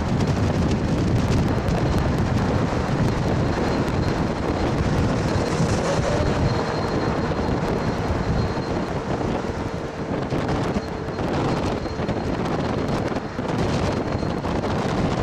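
Wind rushing hard over the microphone from a vehicle pacing a train, over the steady running rumble of Union Pacific 844, a 4-8-4 steam locomotive, working at speed.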